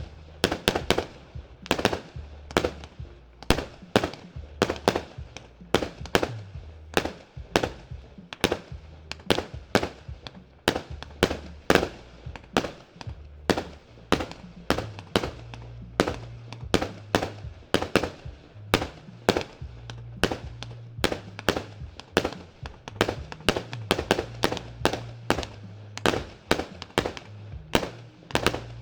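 A 100-shot, 20 mm firework cake (battery) firing continuously, about two to three sharp bangs a second, with background music underneath.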